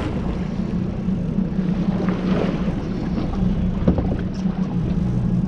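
Boat engine idling with a steady low hum, and a brief knock about four seconds in.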